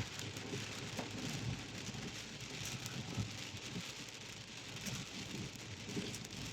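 Heavy rain on a car, heard from inside the cabin: a steady hiss with scattered small ticks of drops.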